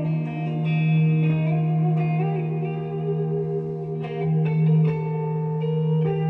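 Electric guitar played solo: a low note held steadily throughout while higher notes are picked over it, changing every second or so.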